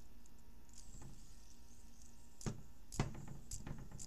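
A few light clicks and knocks of something being handled, the two loudest about two and a half and three seconds in, followed by a few weaker ones.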